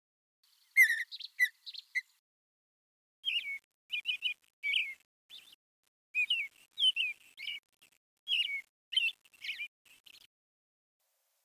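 Small birds chirping: short, clear notes that slide downward, given in quick bursts every second or so.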